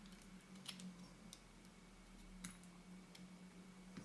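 Near silence over a steady low hum, with a few faint, scattered clicks of small metal lens parts being handled and fitted together.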